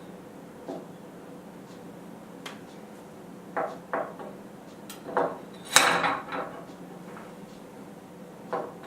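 Iron bar being handled, giving about eight scattered metallic clinks and knocks over a faint steady hum. The loudest comes about six seconds in and rings briefly.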